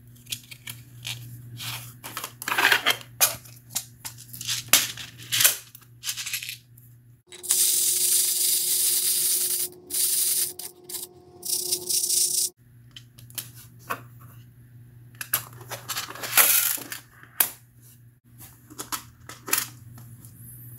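Small pistol primers rattling in a plastic primer flip tray as the tray is shaken to turn them right side up: about five seconds of dense rattling with a few short breaks, a little past the middle. Before and after it, scattered light clicks and taps of the primers and their cardboard box being handled.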